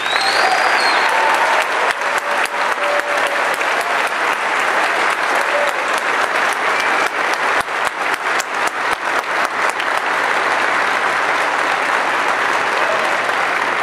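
Large crowd applauding loudly, starting suddenly and continuing steadily, with faint cheers mixed in.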